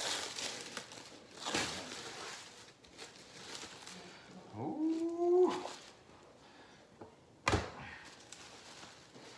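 Plastic wrap rustling and crinkling as it is pulled off a stack of graded comic book slabs. There is a short whining call that rises, holds and falls about halfway through, and a sharp knock near the end.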